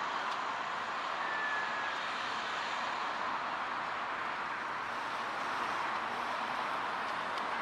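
Steady outdoor traffic noise from road vehicles passing along the road beside the walkway, a continuous even hiss of tyres and engines.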